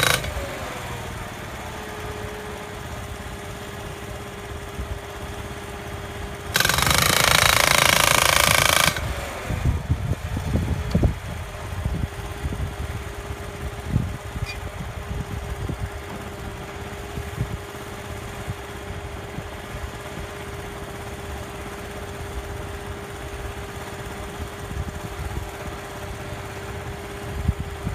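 Atlas Copco LPD-T hydraulic post driver hammering a timber post in one burst of about two seconds, a few seconds in. Around it the hydraulic power pack runs with a steady tone that slides down in pitch each time the hammering stops, and a scatter of knocks and clunks follows the burst as the heavy driver is lifted off the post and carried.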